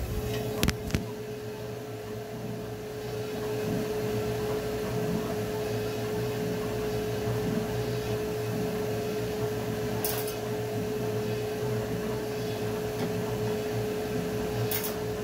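Steady machine hum with a constant mid-pitched tone. Two sharp clicks come just under a second in, and two brief hissy swishes come later.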